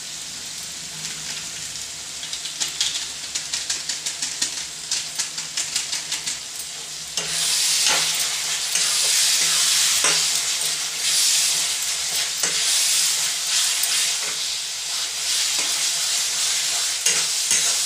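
Onion-tomato masala sizzling in hot oil in a kadhai while a spatula stirs it. The sizzle turns louder about seven seconds in, with the spatula scraping and knocking against the pan every second or two.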